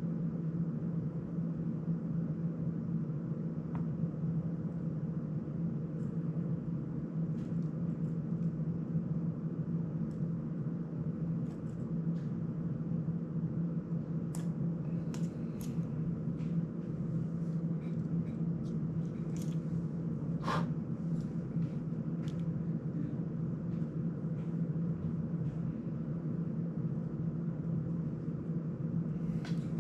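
Steady low hum from a motor or appliance, with scattered light clicks and taps of small tools and parts handled on a workbench during soldering; one sharper click about twenty seconds in.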